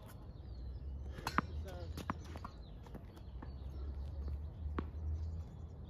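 Scattered sharp taps of footsteps and a tennis ball bounced on a hard court, over a low steady background rumble, with a few bird chirps.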